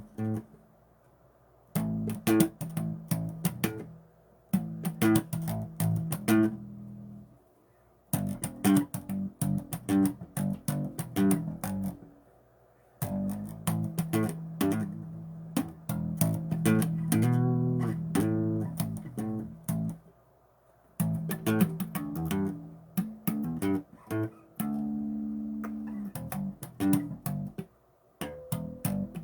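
Bass guitar playing a plucked bass line in short phrases separated by brief pauses.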